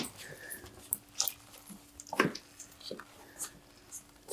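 Scattered light clicks and rustles of handling as a tripwire cord is unwound from an airsoft hand grenade, with a faint steady hum underneath.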